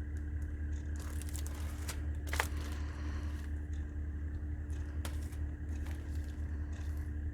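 Packaged chipboard craft sheets being handled close to the microphone: faint crinkling and scraping, with one sharper click about two and a half seconds in, over a steady low hum.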